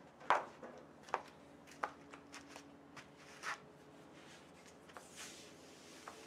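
Vinyl top material rustling as a sheet is unrolled and dragged across the padded roof: several brief rustles, the first about a third of a second in the loudest, and a softer, hissier slide about five seconds in.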